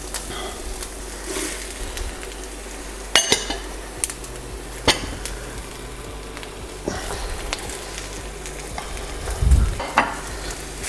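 Bell pepper, onion and carrot sizzling as they stir-fry in hot oil in a wok, over a steady hiss. A spatula scrapes and knocks sharply against the pan a few times.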